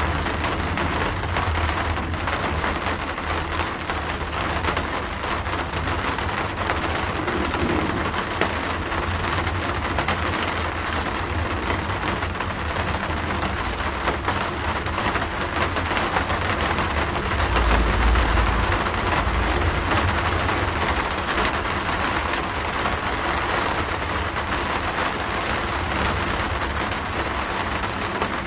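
Steady, dense rain noise with a low rumble underneath that swells briefly about eighteen seconds in.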